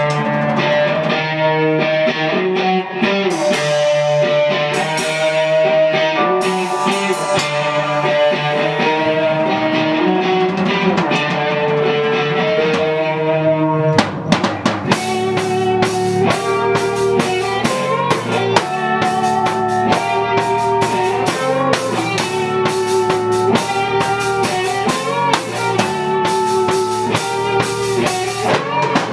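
Rock band playing the instrumental opening of a song: guitar over a drum kit. The drums get noticeably busier about halfway through, with regular cymbal and snare hits driving the beat.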